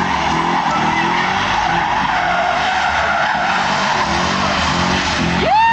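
Chevrolet Lumina doing a burnout: engine revving hard while its spinning tyres squeal steadily on the tarmac. Near the end a loud tone sweeps up and back down over about a second.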